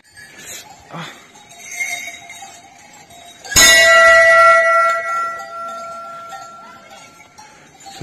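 A large metal temple bell hanging from a chain is struck once, about three and a half seconds in, and rings with several clear tones that fade slowly over about four seconds.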